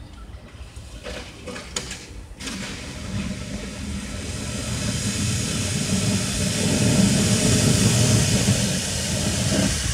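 Golf cart driving closer while its plywood plow blade shoves a pile of leaves and branches across asphalt: a low running rumble under a rustling, scraping hiss that grows steadily louder. A few light clicks come before it builds.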